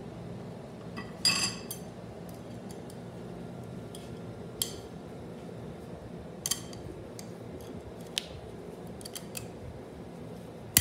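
Sharp metal clicks and clinks of steel clutch parts and a snap ring being fitted by hand into a Turbo 400 transmission clutch drum. The loudest, a ringing clink, comes about a second in, followed by a few scattered lighter clicks.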